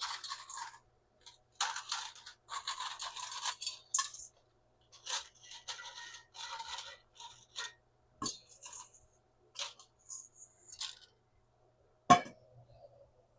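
Dry lasagna noodles scraping, rustling and clinking against a skillet as they are added, in short irregular bursts, with one sharp knock near the end.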